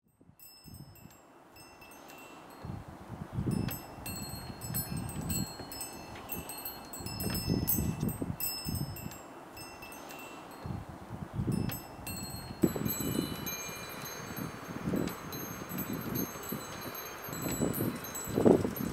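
Chimes tinkling with many high, ringing notes struck at irregular moments, over an uneven low rumble; the sound fades in over the first couple of seconds.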